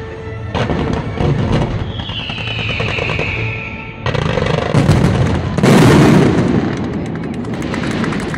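Fireworks display: rapid bangs and crackling from a barrage of shells, with a whistle falling in pitch about two seconds in and the loudest bursts about six seconds in.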